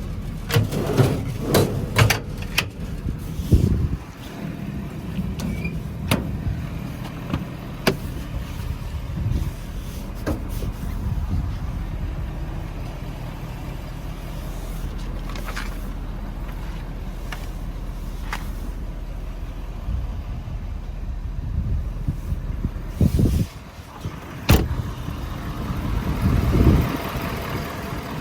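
Metal toolbox compartment doors on a service-truck body being opened and shut, with latches clicking and doors banging, several in quick succession at first and then one at a time. A steady low engine hum runs underneath.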